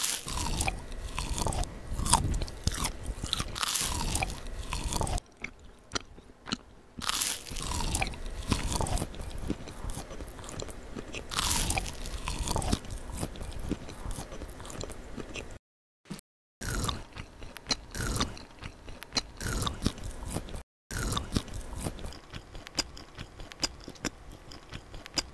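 Close-miked eating sounds: a run of crisp crunchy bites and chewing on crusty bread-like food. The crunching stops briefly about five seconds in and twice more after the middle.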